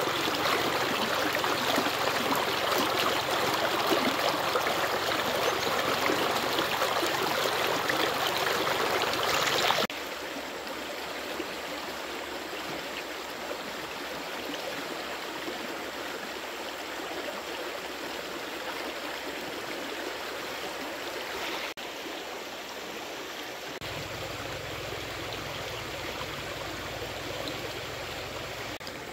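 Stream water running steadily, louder for the first ten seconds and then abruptly quieter. A low rumble joins it for the last few seconds.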